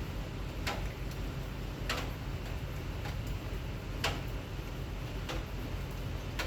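Steady rain noise with sharp ticks at an even pace, about one every second and a bit, like water dripping onto a hard surface.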